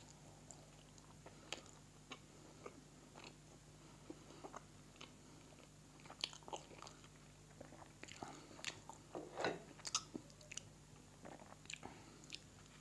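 Close-miked chewing of a piece of kabab-crust pizza: soft, wet mouth clicks and smacks, scattered at first and busier about eight to ten seconds in, over a faint steady low hum.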